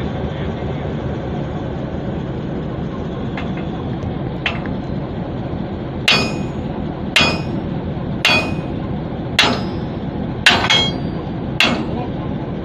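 Hammer blows on a steel railway coupler while a locomotive is coupled to a wagon: six sharp, ringing metal-on-metal strikes about a second apart, starting about six seconds in, over a steady low rumble. Two lighter taps come a few seconds earlier.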